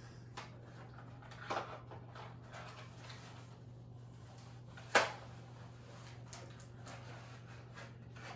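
Handling noise from a plastic Star-Lord helmet being put on and settled over the head: faint rustles and ticks, with one sharp click about five seconds in. A steady low hum runs underneath.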